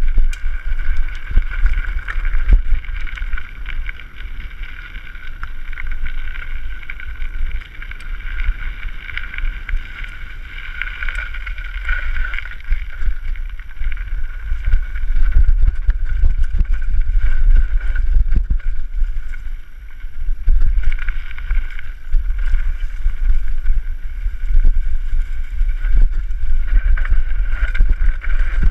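Mountain bike descending a rough dirt trail at speed: wind buffeting the camera's microphone as a steady low rumble, with a constant higher whir and scattered knocks and rattles from bumps in the trail.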